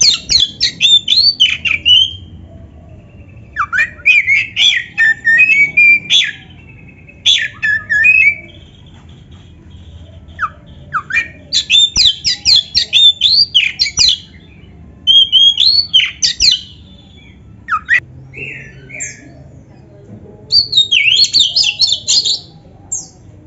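Black-breasted oriental magpie-robin (kacer) singing in loud bursts of fast, sweeping whistled notes, its song packed with mimicked phrases, about seven bursts of one to three seconds with short pauses between.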